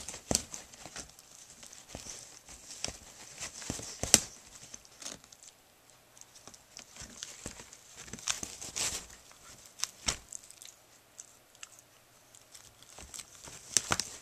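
A puppy chewing and tearing at a cardboard box: irregular crackling and ripping of cardboard with sharp snaps, the loudest about four seconds in and another cluster near the end.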